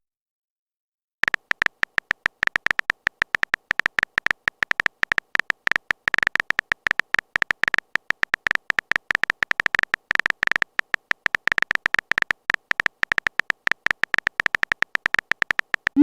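Rapid keypress typing sound effect, as used for a phone message being typed. A quick, irregular run of short, bright clicks starts about a second in and carries on without pause.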